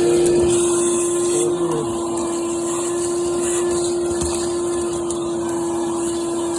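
Vacuum cleaner running steadily while sucking up ash and soot, with an even rush of air and a constant motor whine.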